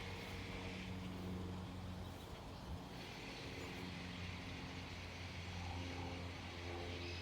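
Steady low hum, like a distant idling engine or traffic, under faint outdoor background noise; the siren is not sounding.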